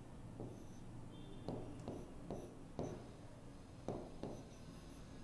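Marker pen writing on a whiteboard: a string of faint, short strokes and taps at irregular intervals as letters are written.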